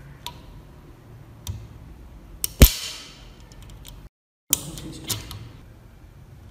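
Key turning in the open mechanism of a restored antique lever lock, its bit working the stacked steel levers with metallic clicks; one sharp clack a little over halfway through rings briefly, and two more sharp clicks follow after a short break. The mechanism is working freely.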